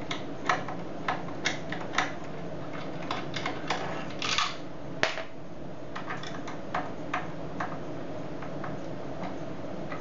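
Irregular small metallic clicks and a short scrape from a screwdriver working the mounting screw of a BEST knob lockset. The clicks come thick in the first half and thin out after, over a steady low background hum.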